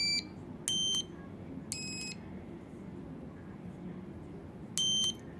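Piezo buzzer of a homemade Simon-style memory game kit beeping out short electronic tones of different pitches, three in quick succession about a second apart, then after a pause one more near the end.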